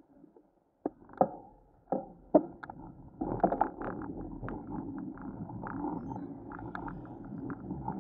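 A few sharp knocks of the camera being handled, then from about three seconds in a steady low rumble with small rattling clicks as the camera, carried on a bicycle, starts rolling along the road.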